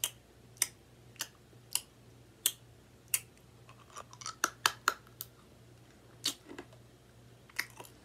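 Irregular sharp clicks, about twenty of them, bunched together about four to five seconds in, over a faint steady low hum.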